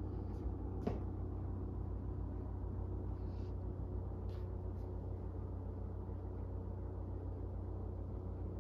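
A steady low hum with a faint noisy wash above it, and a single sharp click about a second in.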